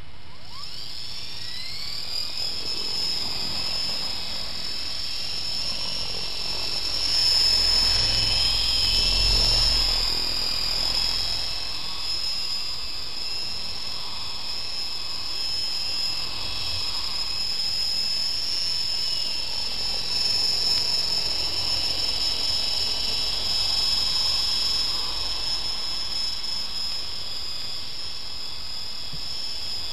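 Small electric RC micro helicopter: its motor and rotor whine rise in pitch over the first couple of seconds as it spools up, then settle into a steady high whine in flight that wavers in pitch and loudness with the throttle, loudest about a third of the way in.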